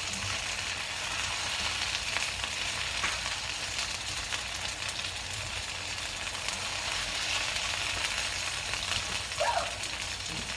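Breaded chicken frying in hot oil in a pan, a steady sizzle.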